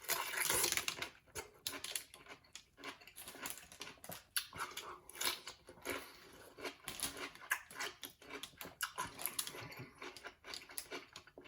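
Close-up, wet crunching and chewing of a big, juicy dill pickle, with irregular crackly bites, loudest in the first second.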